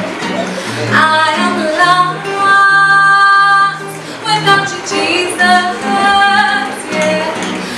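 A woman singing a gospel song over acoustic guitar, holding one long note in the middle before she moves on through the melody.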